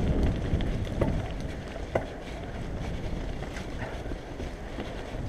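Mountain bike rolling fast down a rocky gravel trail: tyres rumbling over the stones, with wind buffeting the microphone. Two short sharp knocks about one and two seconds in.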